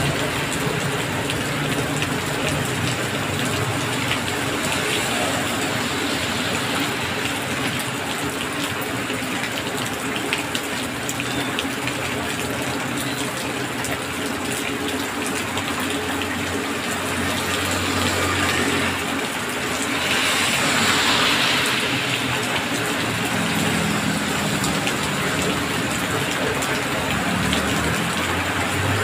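Heavy rain falling steadily on a wet road and a parked car, with motorbikes and cars passing through the water. About two-thirds of the way through, the hiss of a passing vehicle's tyres on the wet road swells and fades.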